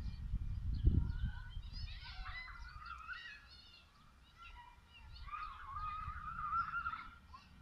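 Several birds chirping and warbling, with a longer wavering warble about five to seven seconds in. Under them, a low rumble that fades after the first two or three seconds.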